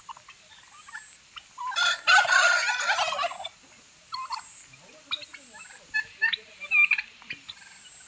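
Domestic turkey gobbling once, a loud rapid warbling call of about a second and a half starting about two seconds in, followed by scattered short calls from the flock.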